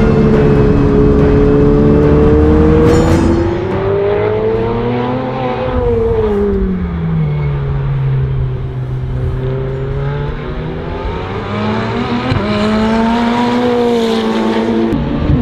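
Ferrari 488 Challenge race car's engine at full racing speed: its note climbs for about five seconds, drops and holds low, then climbs and falls again near the end.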